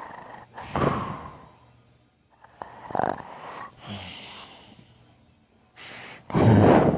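A man snoring heavily in his sleep: a series of separate snoring breaths, the loudest one near the end.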